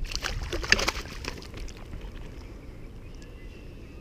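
A quick run of splashes and knocks for about a second and a half, loudest just under a second in, as a hooked flounder is brought up to the kayak; then a low steady rush of wind and water.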